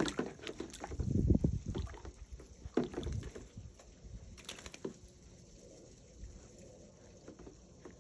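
Bobcat pawing and splashing in the water of a plastic kiddie pool, with irregular sloshes and knocks, loudest about a second in and quieter in the second half.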